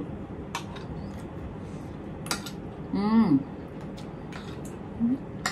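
Spoons and forks clinking now and then against plates and bowls during a meal, a few sharp separate clinks. A short voice sound about three seconds in.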